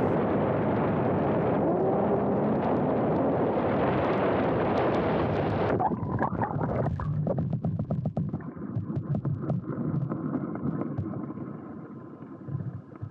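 Steady rush of wind over a home-built RC airplane's onboard camera, which cuts off suddenly about six seconds in. It turns muffled, with scattered clicks, and fades away, consistent with the plane crashing into the water and the camera going under.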